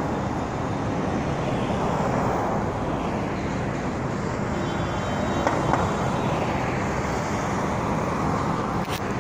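Steady city traffic noise from cars on a nearby road.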